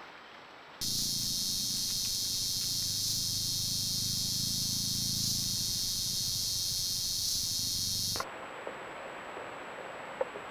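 Loud, steady, high-pitched buzzing chorus of jungle insects, with a low hum beneath it; it starts abruptly about a second in and cuts off suddenly near the end, leaving quieter forest hiss with a few faint clicks.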